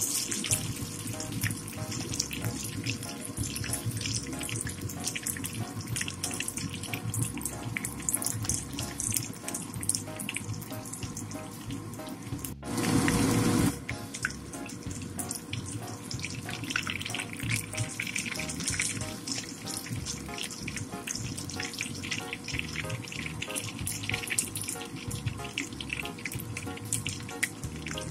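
Cabbage, carrot and zucchini fritters sizzling as they shallow-fry in hot canola oil, with background music. About halfway a louder hiss breaks in suddenly and lasts about a second.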